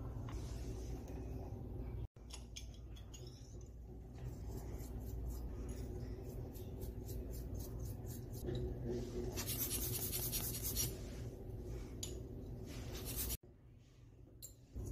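Small ticks and scrapes of steel tweezers working on a watch movement, then a small brush scrubbing a watch movement part in a glass dish of cleaning liquid, with a scratchy rubbing that gets louder for about a second and a half near the middle.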